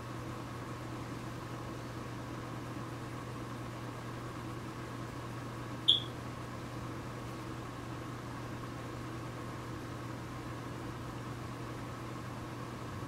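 Steady low hum of room tone, with one brief high-pitched chirp about six seconds in.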